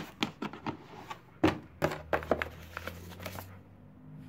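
Black plastic carrying case of a Power Probe 3 circuit tester being opened: a handful of clicks and knocks as the latches are snapped open and the lid is lifted, the loudest about a second and a half in.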